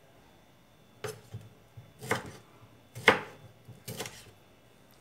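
Kitchen knife slicing tomatoes on a wooden cutting board: four cuts, each ending in a sharp knock of the blade on the board, about a second apart.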